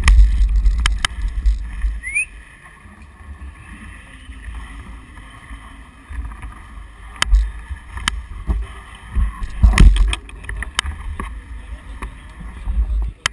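Wind buffeting the microphone of a bicycle-mounted camera, in low rumbling gusts that are strongest in the first two seconds and again about ten seconds in. Scattered sharp clicks and knocks come from the camera and bike as it rolls.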